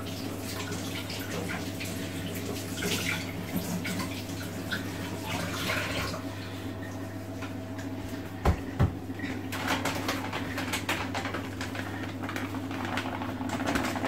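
Water running and splashing in a sink, then two sharp knocks a little past eight seconds in, followed by the crackling of a plastic bag of paprika being handled and poured.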